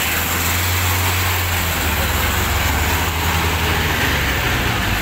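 Fire truck engine running steadily, a low drone, with voices of a crowd in the background.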